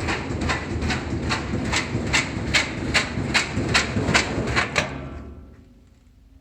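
2005 Whirlpool washing machine spinning at high speed with an unbalanced load: the drum bangs against the cabinet about two or three times a second over a low rumble. The banging dies away about five seconds in.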